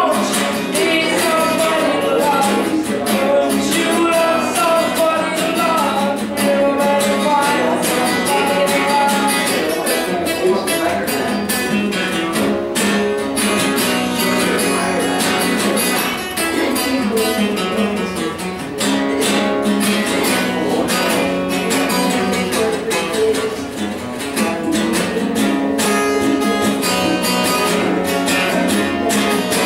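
Acoustic guitar strummed rapidly and hard in an instrumental passage, with a melody line over the strumming in the first several seconds.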